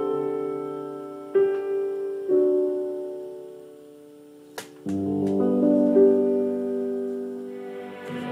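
Background music: slow solo piano, held chords dying away. After a short click, a new, fuller passage begins about five seconds in.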